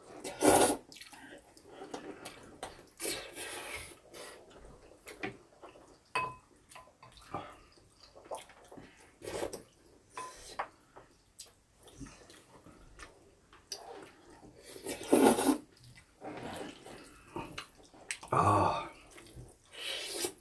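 Black-bean-sauce noodles (jjajangmyeon) being slurped and chewed: wet sucking slurps in irregular bursts, the loudest about half a second in and again near the end, with quieter smacking and small clicks between.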